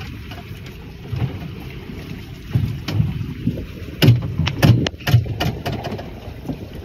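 Wind buffeting the microphone aboard a small motorboat under way, with several sharp knocks about four to five and a half seconds in.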